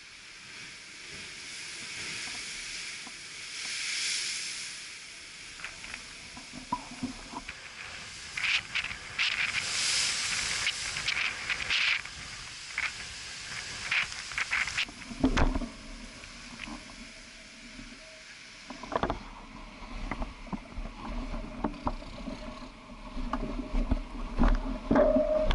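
Sea surf washing over a rocky shore: a hiss that swells twice in the first half, with scattered crackles. In the second half a low rumble of wind buffets the microphone.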